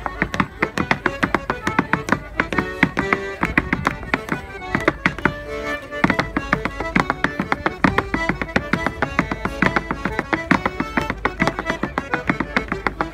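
Clogs tapping out quick, rhythmic steps on a wooden board stage, over a squeezebox playing a lively dance tune.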